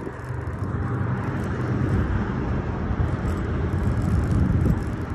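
Steady rumble of road traffic, with cars and trucks passing on a nearby road.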